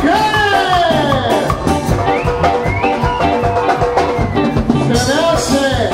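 Live band playing Latin-style dance music, with a drum kit keeping a steady beat and a voice singing over the band.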